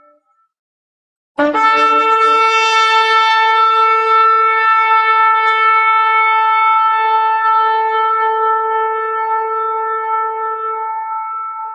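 A shofar (ram's-horn trumpet) sounds one long, steady blast. It starts abruptly after a second of silence and is held on a single note, slowly fading near the end.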